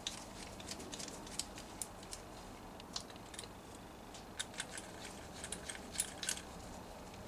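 Faint, irregular light metallic clicks and ticks of 10 mm bolts being threaded in by hand on a gearbox's shift selector housing.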